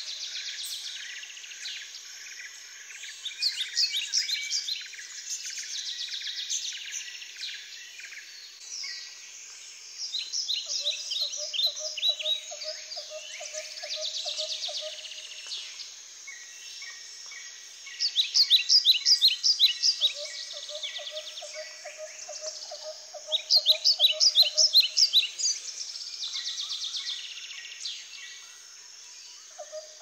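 Many birds calling at once in a zoo aviary: a dense, continuous layer of high chirps and trills, rising twice to loud runs of rapid sharp chirps. Through it, a lower, rapidly pulsed call repeats about every ten seconds, each run lasting a few seconds.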